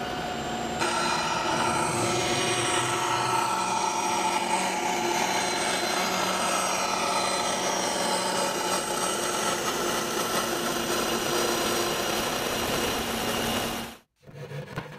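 Bandsaw running and cutting through a sheet of wood: a loud, steady machine noise with a few steady tones. It stops abruptly near the end.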